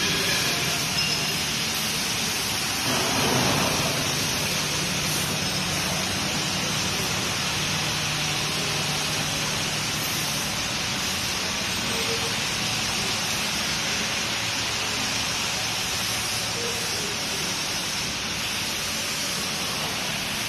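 Industrial plastic crate washing machine running: a steady rush of water spray with a low motor or pump hum under it, and a brief louder surge about three seconds in.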